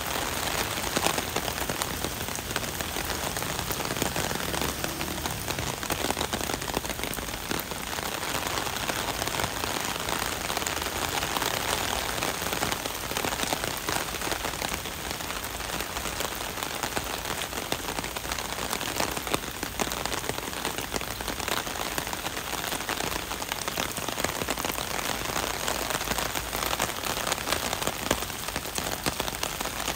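Heavy rain falling steadily on wet pavement and puddles, an even wash of many drops.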